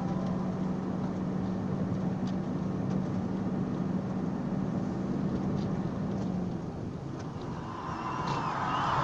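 Truck engine and road noise heard inside the cab of a moving truck, with a steady low hum that stops about six and a half seconds in. A rushing noise swells near the end.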